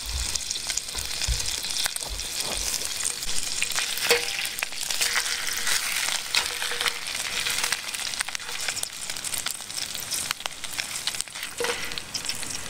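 Two whole brook trout frying in butter in a stainless steel pan: a steady sizzle of fine crackles. Now and then there is a click as a knife blade nudges the fish against the pan.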